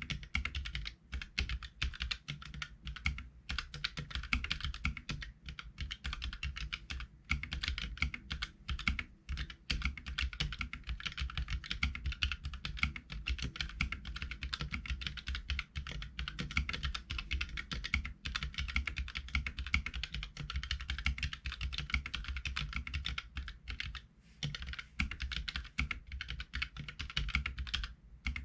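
Continuous fast typing on a Keychron K3 keyboard with Gateron Red linear switches: a dense patter of keystrokes with a few brief pauses.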